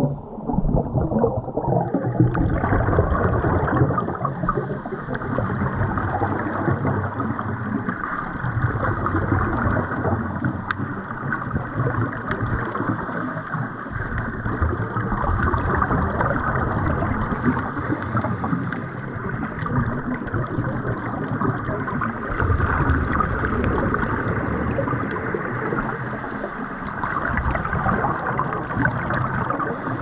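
Scuba divers' exhaled bubbles gurgling from their regulators over a continuous rush of water, heard underwater through a camera housing, so it is muffled. It swells and eases every few seconds with the breathing.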